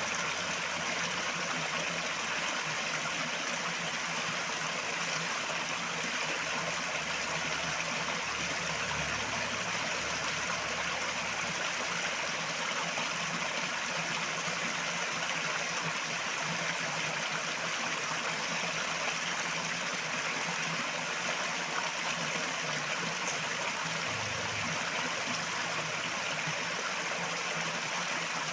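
River water running over rocks, a steady even rush with small trickling and gurgling, unchanging throughout.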